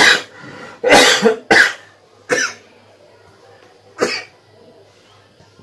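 A man coughing in a short fit: a loud cough right at the start, two more close together about a second in, another a little later, and a last one about four seconds in.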